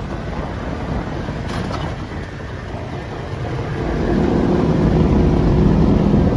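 Off-road vehicle's engine running under way, lighter at first and then pulling harder again from about four seconds in.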